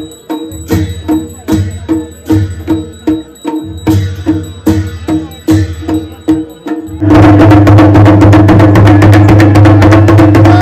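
Uttarakhandi ritual drumming on a dhol barrel drum with brass plates (thali) struck with sticks. It keeps a steady beat of about three strokes a second, then about seven seconds in breaks into a louder, fast roll of about ten strokes a second.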